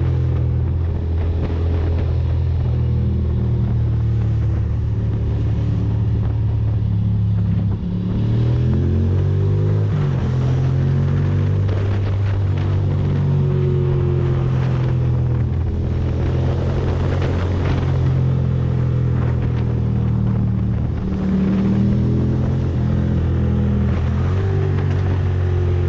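Ducati Monster's V-twin engine running under way, its pitch holding steady and then dropping and climbing again around eight to ten seconds in and once more near twenty-one seconds.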